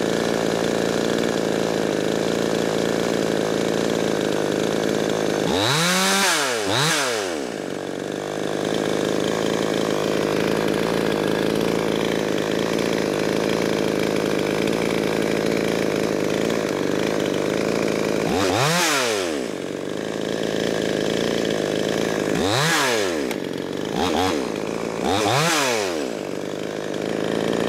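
Ported Coocheer 6200 two-stroke Chinese clone chainsaw with its muffler baffle cut out, idling steadily between quick throttle blips. Each blip makes the revs climb sharply and fall back: two close together about a quarter of the way in, one a little past the middle, and three in quick succession near the end.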